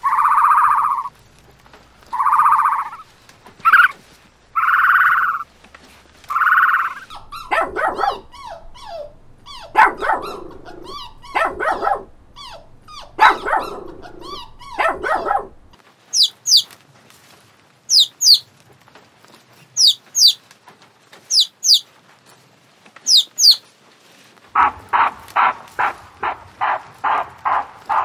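A run of different animal calls in turn. First come about five short calls a little over a second apart. Then a dog barks in irregular bursts, followed by high-pitched bird chirps, and near the end a rapid string of short repeated calls.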